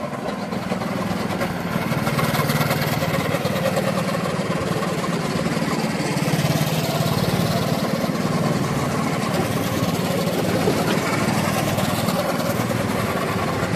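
Several small petrol go-kart engines running as karts lap the track, a steady drone that gets louder over the first two seconds.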